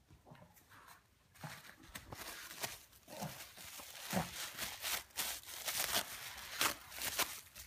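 Thin tissue paper crinkling and tearing as a Shih Tzu paws and bites at it: a quiet start, then from about a second and a half in a busy run of rustles and rips.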